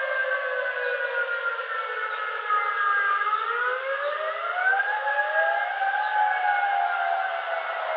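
Warning siren wailing, several tones sounding together: the pitch falls slowly, rises again about three seconds in, holds, then starts to fall again near the end.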